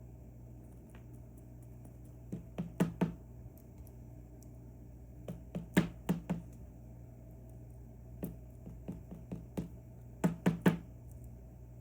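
Metal lock pick clicking and tapping inside an Assa Twin V10 high-security lock as its barrel pins are picked, in four short clusters of sharp clicks.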